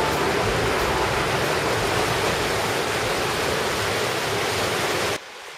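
River rapids: fast water rushing over rocks in a steady, loud rush that cuts off abruptly about five seconds in.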